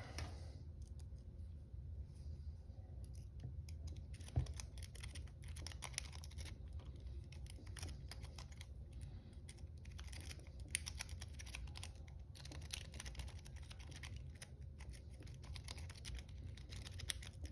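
A 4-peak lock-pick rake worked in and out of the keyway of a Master Lock No. 140 40 mm brass padlock: faint, irregular metallic clicking as it scrapes over the pin tumblers, with one louder knock about four seconds in. The four-pin lock is not opening to the rake.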